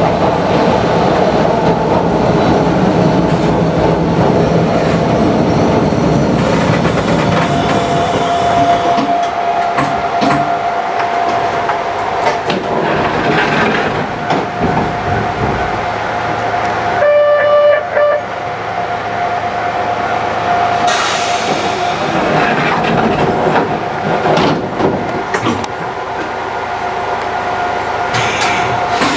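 Narrow-gauge electric railcar with nose-suspended traction motors running, then slowing to a standstill in the first half. While it stands, a steady whine from on-board equipment continues, and a short pitched beep of about a second sounds a little past halfway.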